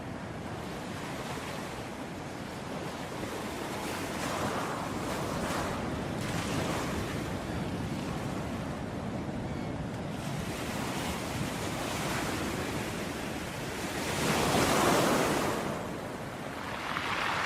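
Ocean waves breaking and washing on a beach, a steady surf with waves swelling and falling back; the biggest wave breaks about fifteen seconds in.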